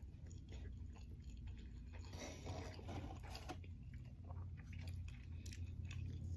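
Close-up chewing of a soft, fresh-bread kolache with pepperoni pizza filling: soft wet mouth clicks, busier about two seconds in, over a steady low hum.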